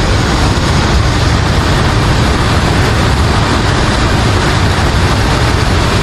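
Steady, loud rushing of a waterfall and stream, with a low rumble underneath.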